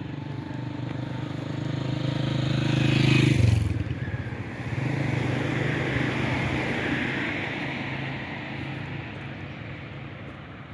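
A motorcycle approaches and passes close by, its engine note getting louder until about three seconds in and then dropping in pitch as it goes by. A second vehicle then passes with a rush of tyre noise that slowly fades.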